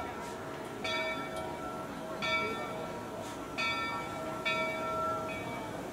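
Steam locomotive bell on Rio Grande Southern 41 ringing as it swings, five strokes roughly a second apart, each ringing on into the next.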